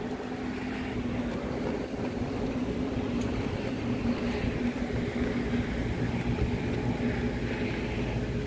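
A steady engine hum holding one pitch over a low rumble.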